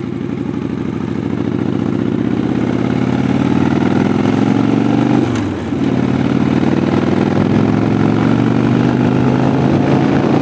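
V-twin cruiser motorcycle engine under way, recorded from a camera mounted on the bike. The engine note climbs as it accelerates, with a brief drop in pitch and level about halfway through before it climbs again.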